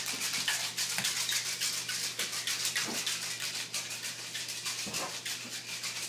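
Ice and salt rattling inside an Ice Cream Magic toy ice cream maker as it is shaken nonstop, a rapid steady rattle around its metal inner core.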